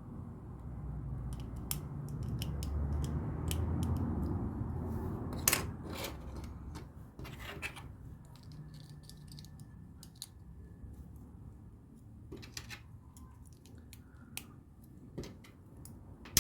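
Plastic LEGO pieces being handled and pressed together: scattered sharp clicks and small rattles. Under them, a low rumble swells over the first few seconds and then fades.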